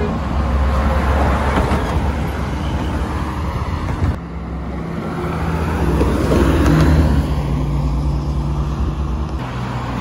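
Coach buses driving past on a highway: engine and tyre noise that swells as a bus goes by. The sound changes abruptly about four seconds in and again near the end, as one passing bus gives way to the next.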